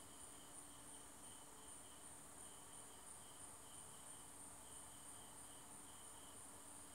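Near silence, with faint insects chirping in a steady, evenly pulsing high trill.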